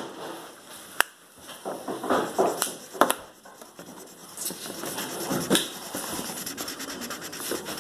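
Scratchy rubbing and handling noises of marker and paper, with a couple of sharp clicks about one and three seconds in.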